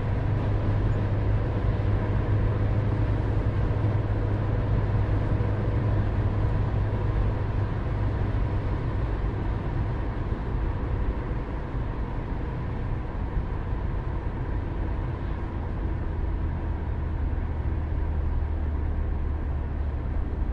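Car driving at a steady speed: a continuous low rumble of engine and road noise with a faint steady hum above it. It eases slightly a little past halfway, the low note settling a touch lower.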